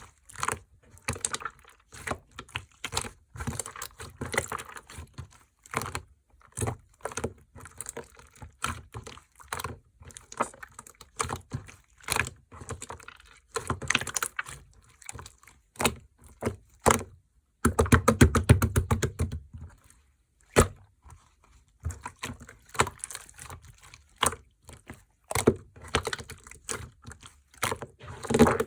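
Clear slime being pressed and squished by hand, giving irregular crackling clicks and small air-bubble pops. About eighteen seconds in there is a denser run of rapid clicks lasting a couple of seconds.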